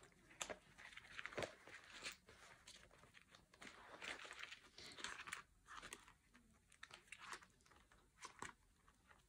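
Faint, irregular crinkling and rustling of clear plastic zip cash envelopes being handled and turned on the rings of a Filofax organiser, with a few small clicks.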